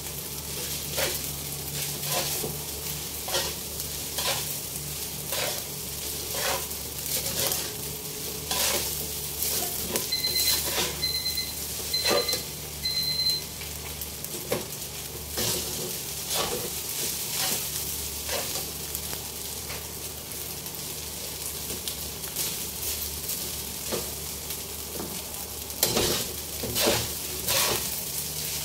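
Metal spatula repeatedly scraping and knocking against a steel wok as rice is stir-fried, over a steady sizzle. A run of four short electronic beeps comes about ten seconds in.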